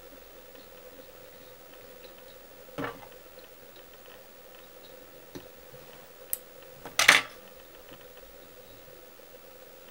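Handling sounds of fly tying at a vise: a few small clicks and knocks from tools and fingers, the loudest a quick double knock about seven seconds in, over a faint steady hum.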